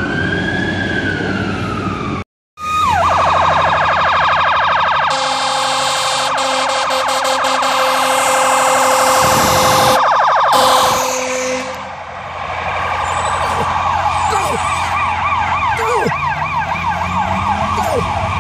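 Fire truck sirens. A slow wailing siren rises and falls until a brief cut about two seconds in. After it a rapid electronic yelp sounds loudly, with a steady low tone under it for several seconds, changing to a faster warble near the end.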